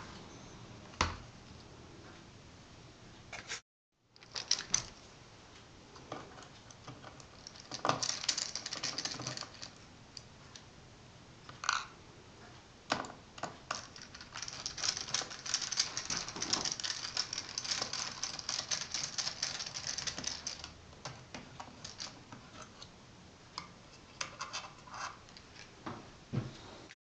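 Small hand tools and parts clicking, tapping and scraping against a laptop's plastic and metal during disassembly, with a stretch of fast scratchy clicking in the middle.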